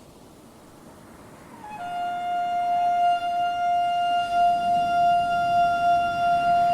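Shofar (ram's-horn trumpet) blown in one long held blast. The blast starts about halfway in out of a faint hiss, slides briefly down in pitch, then settles on a steady note.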